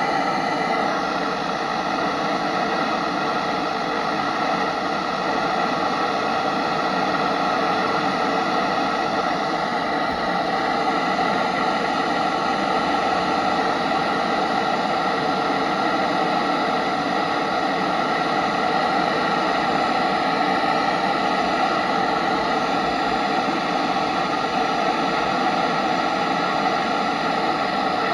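Steady radio static: an even hiss with faint constant tones mixed in, carrying no voice.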